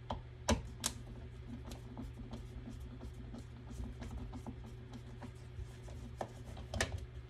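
Screwdriver with a Torx T10 bit backing tamper-proof screws out of a plastic inflator/deflator housing: faint scratching and rattling of the bit, with sharp clicks twice near the start and twice near the end.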